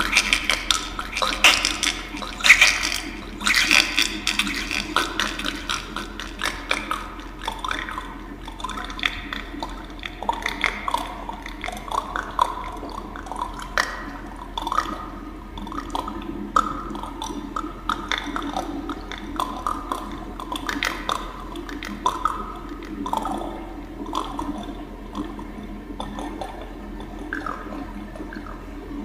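Wet dripping and plopping sounds: many quick drops, each a short rising plop, thick in the first few seconds and thinning out later, over a steady low hum.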